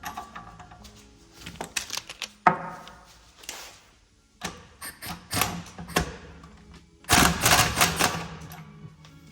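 Metal tools clattering and knocking while a car's front strut is worked on, with one ringing metallic clank about two and a half seconds in and a loud burst of rapid rattling about seven seconds in, over background music.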